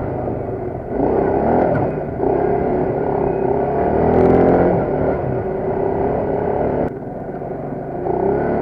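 Quad bike (ATV) engine running under way, its pitch rising and falling as the throttle is worked over a dirt track. The engine sound changes abruptly about seven seconds in.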